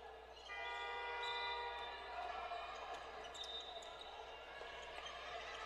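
Basketball game on a gym court: a ball bouncing, with short squeaks. A steady tone with many overtones sounds for nearly two seconds about half a second in.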